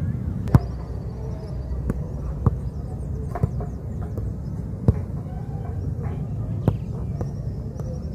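A football being kicked and headed back and forth, each touch a sharp thud, about one every one to two seconds. Birds chirp faintly behind a steady low rumble.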